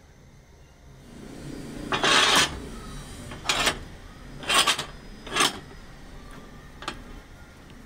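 Wooden snooker cue blank rasping as it is pushed through the guide rings and cutter of a rounding machine: four short scraping bursts about a second apart, then a single click near the end.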